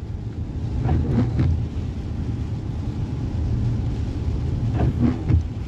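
Steady low rumble of a car's engine and tyres on a wet road heard inside the cabin, under a faint hiss of rain.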